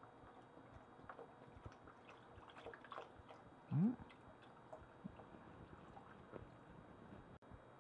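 Vegetable broth poured from a carton into a pot of gumbo: faint liquid splashing and gurgling, with one brief, louder rising sound about four seconds in.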